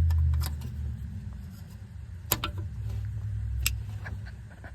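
A few sharp plastic clicks and knocks, the clearest about two and a half seconds in and again near the end, as a small plastic clip beside the ABS wheel speed sensor connector is worked loose, over a low rumble that is loud for the first half second and then drops away.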